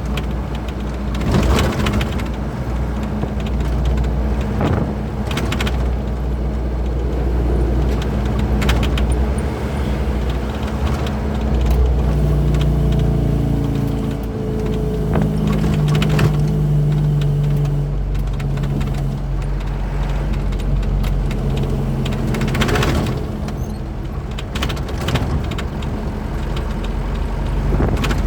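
Truck engine running while driving, a steady low drone with scattered knocks and rattles; about halfway through the engine note rises and shifts for a few seconds.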